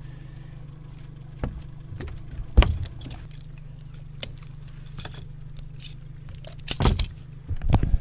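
Knocks, clicks and scrapes of a large barramundi and a metal lip grip being handled on a boat's carpeted deck and measuring board, over a steady low hum. One sharp thump comes about two and a half seconds in, and a burst of knocks near the end.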